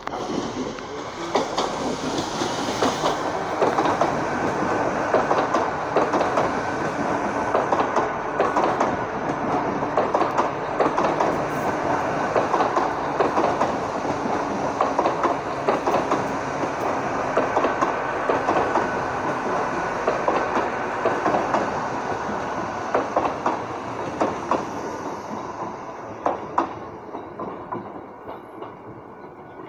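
Great Western Railway Hitachi bi-mode intercity train passing close by on its underfloor diesel engines, with many sharp clicks of the wheels over rail joints and points. The sound builds as it arrives and fades near the end as the train draws away.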